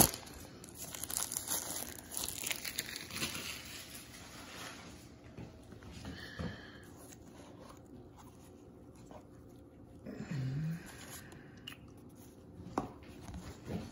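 Plastic shrink-wrap crinkling and tearing as it is pulled off a cardboard box, loudest in the first three seconds, followed by quieter sounds of the box being handled and opened.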